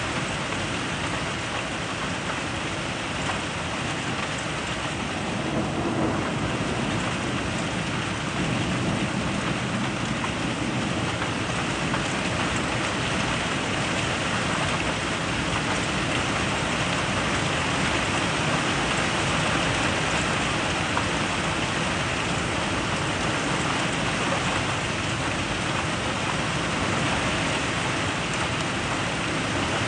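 Rain from a severe thunderstorm pouring down steadily, getting a little louder after about eight seconds.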